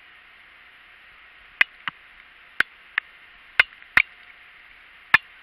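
Seven sharp, irregular ticks or taps over a steady hiss, beginning about a second and a half in.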